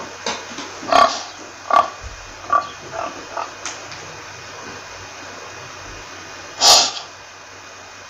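Domestic pig grunting: a quick run of short grunts over the first four seconds, then one louder, longer call near seven seconds, over a steady hiss.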